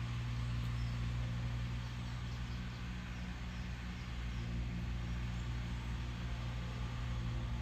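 A steady low mechanical hum, as of an engine running, unchanging throughout.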